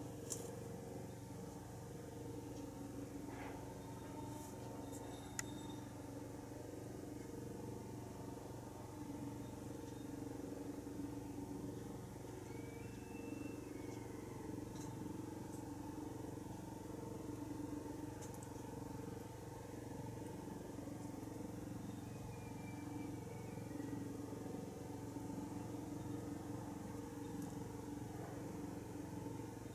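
A steady low mechanical hum made of several held tones, like a motor or engine running. A few faint clicks sound over it, and twice a faint short high chirp.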